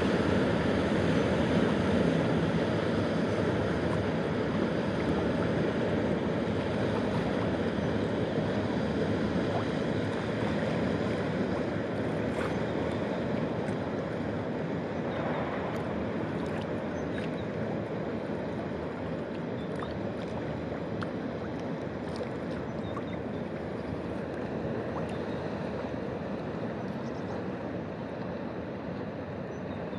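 Passing loaded inland container barge: a steady low rumble mixed with rushing water from its bow wave and wash, slowly fading.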